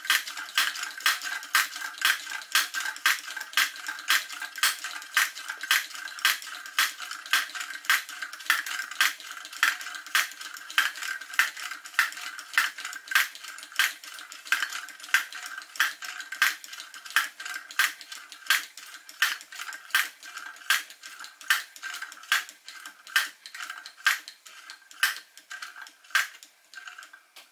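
Wilesco toy drop hammer, belt-driven by a Stirling engine, striking in a steady run of sharp metallic clinks about twice a second. Near the end the strikes spread out as the engine slows, running on leftover heat after its burner has been put out.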